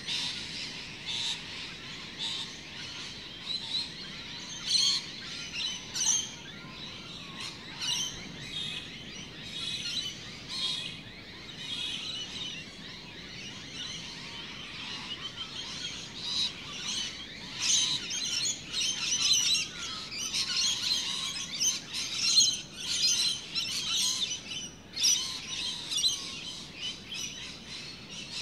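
Birds chirping and calling, many short high calls overlapping, busiest in the second half.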